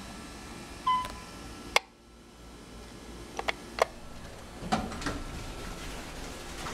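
Otis hydraulic elevator: a short electronic beep about a second in, then a sharp click. A few lighter clicks and knocks follow, over a low steady hum.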